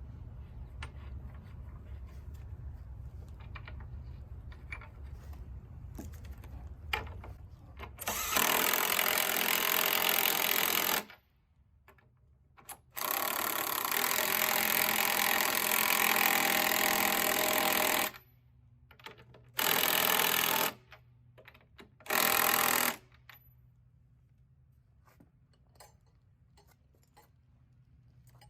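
A handheld power tool runs in four bursts: a long one of about five seconds and two short ones near the end, with quieter gaps of low hum and light clicks between them.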